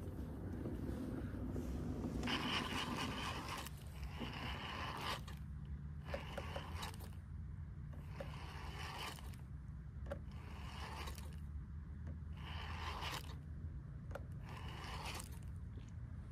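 Fishing reel cranked in short bursts of about a second each, eight or so times, a scraping, zipper-like whirr as a lure is worked back with pauses between turns.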